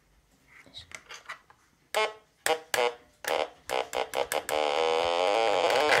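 Dubreq Stylophone Gen X-1 analog synthesizer played with its stylus: a few short, separate notes from about two seconds in, then from about four and a half seconds a held note with a wavering pitch.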